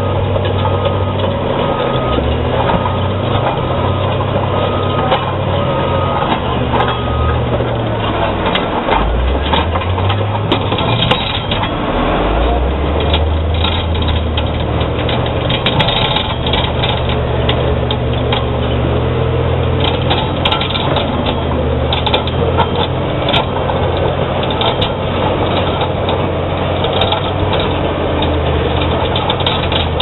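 Caterpillar D7G bulldozer's diesel engine working under load as its rear ripper tears through rock, with the crunching and cracking of breaking stone. The engine note sags and then picks back up about ten seconds in.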